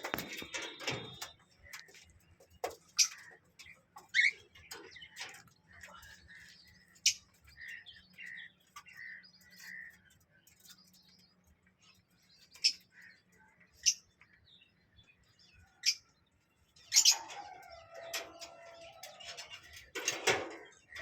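Pet cockatiel and lovebirds giving short, sharp chirps at irregular intervals, with a louder, busier run of calls near the end.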